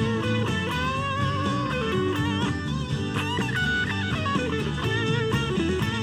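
Fender Stratocaster electric guitar playing a blues-rock lead with string bends and vibrato over a full-band backing of drums and bass.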